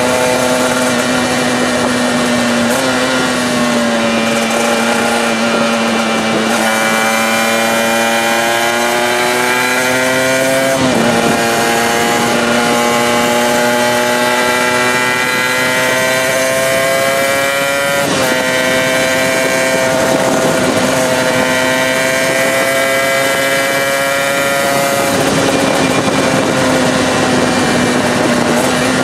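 Performance-modified 2003 Aprilia RS125 two-stroke single-cylinder engine under way on the road. Its note climbs steadily, drops sharply and climbs again about a third and two thirds of the way through.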